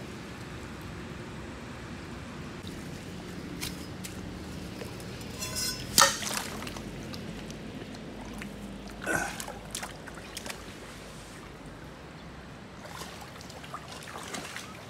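Muddy floodwater running and trickling along the furrows between the crop beds as it keeps flowing into the flooded greenhouse, with a few sharper sounds, the loudest about six seconds in.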